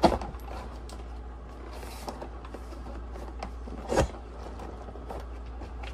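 Cardboard box and packaging being handled: faint rustles and small clicks, with a sharp knock at the start and a heavier thump about four seconds in, over a steady low hum.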